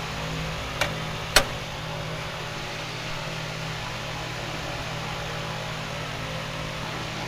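Steady low hum under an even hiss, with two sharp clicks about a second in, the second louder.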